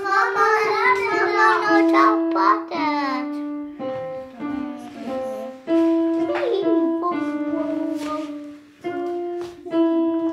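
A child singing while picking out a slow melody one note at a time on an electronic keyboard; the singing is strongest in the first three seconds, after which the keyboard notes mostly carry on alone.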